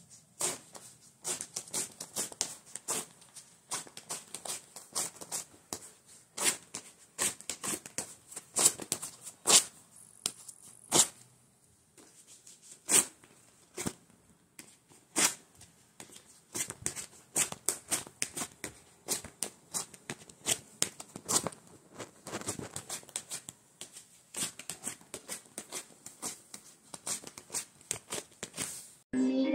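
Wax strips being rubbed down onto and ripped off a man's wax-coated hairy leg: irregular runs of short crackles and tearing rips with brief pauses, a few single rips louder than the rest.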